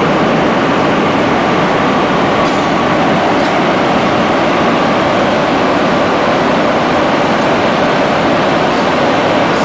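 Steady cabin noise of an airliner in flight: an even, unbroken roar of engines and airflow heard inside the cabin.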